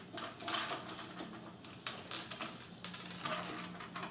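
Small clicks and scrapes of a screwdriver working screws out of a DJ mixer's casing, coming in several short bursts.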